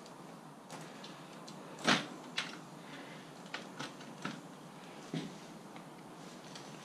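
Bicycles and a wheel being handled: a scatter of short knocks and clicks of metal and parts, the loudest about two seconds in.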